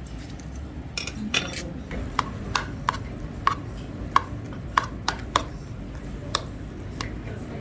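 Eating utensils clicking and clinking against dishes, a dozen or so sharp, irregular taps over a low steady background.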